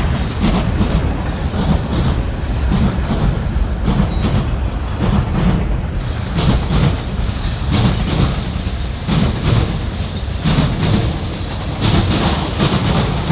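Freight cars of a long CN freight train rolling past, with their wheels clicking over the rail joints. From about halfway through, a high, steady wheel squeal rises over the rumble.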